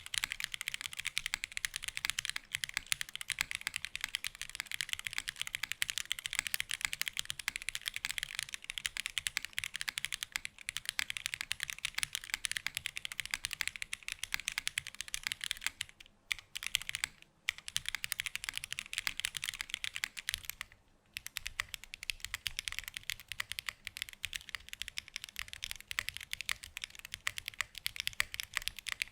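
Fast, continuous typing on a 65% custom mechanical keyboard with DM Nezuko switches and GMK keycaps: a dense stream of sharp keystroke clacks, broken by three short pauses in the second half.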